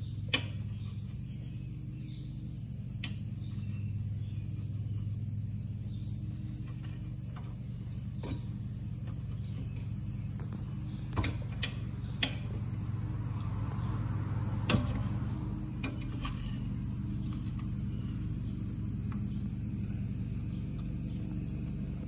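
Scattered sharp metallic clicks and clinks of hand tools and brake parts being handled in a car's rear wheel well, about seven in all, the loudest about three-quarters of the way through, over a steady low hum.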